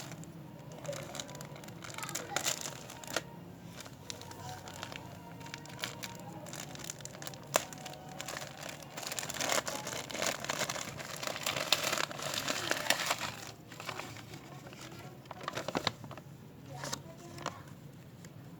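Plastic packaging being handled and torn open during an unboxing: irregular crinkling and rustling with sharp clicks, busiest in the middle stretch.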